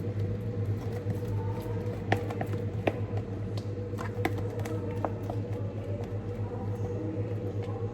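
Plastic spoon stirring thick slime in a pot while it is being activated: scattered short clicks and soft squelches over a steady low hum.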